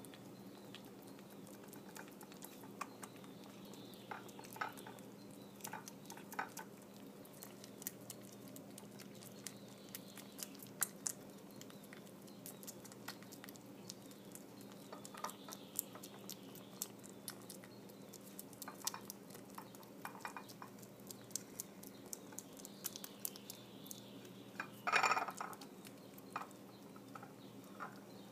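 Five-and-a-half-week-old kitten eating soft food off a plate: irregular small wet smacking and clicking of chewing and licking. One louder brief noise comes near the end, over a low steady hum.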